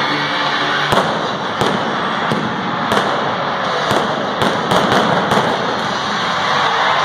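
Arena pyrotechnics going off: a series of about nine sharp bangs, bunched between about one and five and a half seconds in, over a continuous dense noise.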